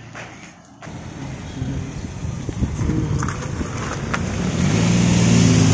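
A van's engine running, getting louder and steadier about halfway through, with a few light knocks.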